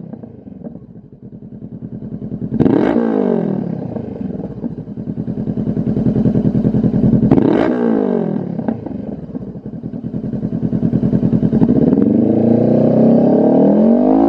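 Honda CB500F's parallel-twin engine running through a Lextek carbon-fibre slip-on silencer, idling with an even pulse and free-revved: two quick blips that rise and fall sharply, a few seconds apart, then a longer climb to higher revs near the end.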